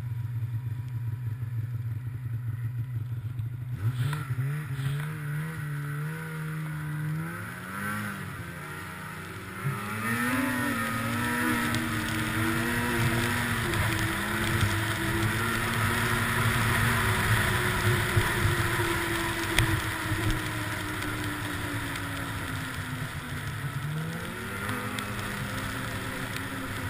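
Snowmobile engine under way. It runs low and steady at first, then climbs in pitch as it accelerates from about four seconds in. It holds a steady cruising note with a rushing noise over it, eases off, and picks up again near the end.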